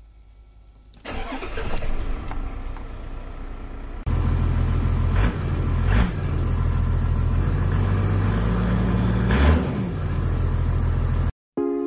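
Toyota 1HD-FTE 4.2-litre turbo-diesel straight-six started on the key about a second in, then idling steadily, with a couple of brief throttle blips and one longer rev near the end that rises and falls in pitch.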